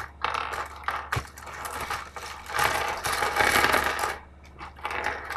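Plastic bag crinkling as it is opened, with loose plastic puzzle-cube pieces clicking and clattering together, loudest about halfway through.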